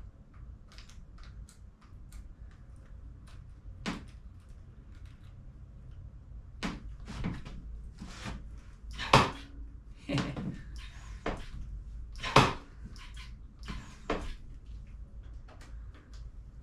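Scattered clicks and clunks of bike parts and hand tools being handled while working on a mountain bike's handlebar and stem, with two sharper loud knocks about nine and twelve seconds in.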